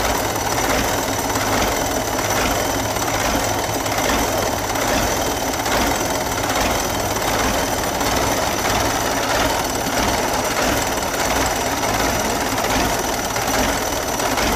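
Belarus 892.2 tractor's turbodiesel engine running steadily, heard up close, with an even mechanical clatter and a slow regular pulse.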